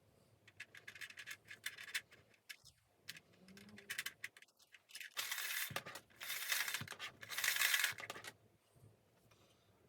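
Small plastic vacuum cleaner parts being scrubbed and handled. A run of quick clicks and scrapes is followed by three louder rasping scrubbing strokes in the second half.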